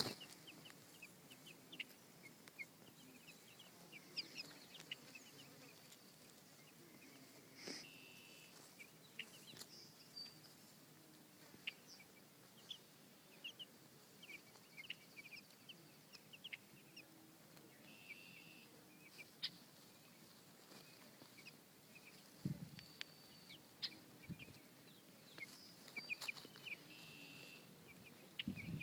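Two-week-old baby chicks peeping faintly: scattered short, high chirps, a few held a little longer, with a few soft low knocks near the end.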